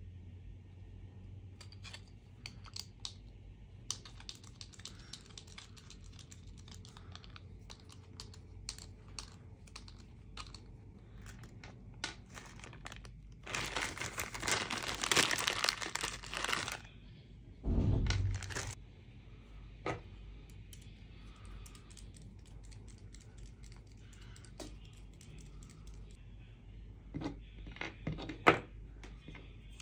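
Light clicks and ticks of a precision screwdriver, small screws and 3D-printed plastic parts being handled and set down on a wooden desk. About halfway through, a small plastic screw bag rustles for a few seconds, followed by a dull thump.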